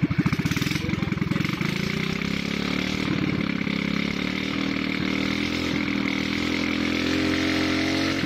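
Small Loncin gasoline engine, freshly fitted with a new carburetor, revving up from idle as its throttle line is pulled. The pitch rises over the first couple of seconds and then holds at high revs.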